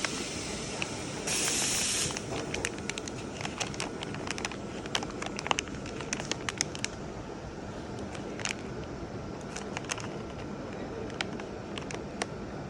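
Two short bursts of hissing compressed gas from a nitrogen-flush bag sealing machine, the second lasting about a second, followed by many scattered sharp clicks and crackles over a steady low hum.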